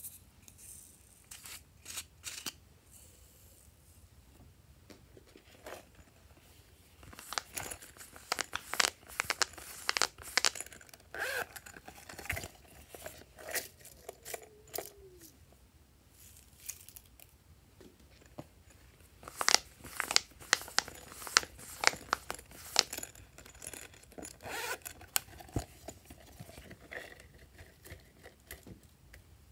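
Plastic zip bags of glitter stars crinkling and rustling as they are opened and handled, with sharp little clicks of the sprinkles. The crackling comes in two busy stretches, about seven seconds in and again near twenty seconds.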